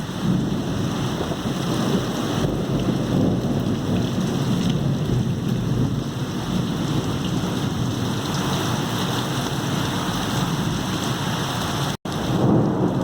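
Heavy rain pouring steadily, an even rushing hiss, cutting out for an instant near the end.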